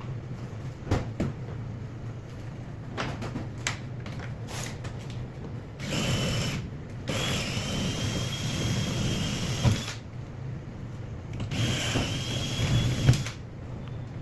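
Power drill running in two spells of a few seconds each, a steady high whine that starts and stops abruptly, after a few sharp clicks and knocks.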